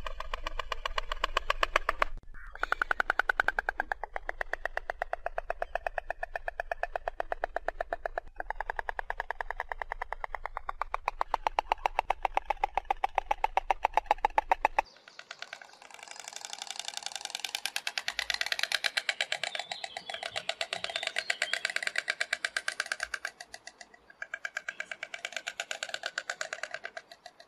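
Storks clattering their bills: a fast, even rattle of clicks that breaks off briefly twice. About halfway through it gives way to a second, hoarser rattle, with a short gap near the end.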